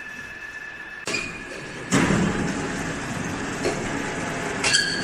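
Heavy metal parts knocking and clanking against the cast pump casing, over a continuing rumble of machinery. A loud knock comes about two seconds in and another near the end, after a faint steady whine at the start.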